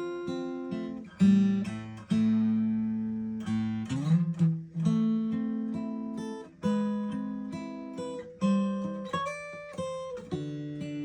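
Taylor 214 DLX acoustic guitar being played: chords struck one after another and left to ring out, with a short run of quicker single notes near the end.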